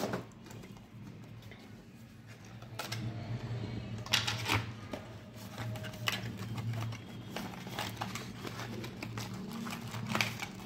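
Cardboard and clear plastic packaging being handled and opened: scattered taps, scrapes and rustles as the box comes out of its plastic case and the inner box slides from its cardboard sleeve, over a steady low hum.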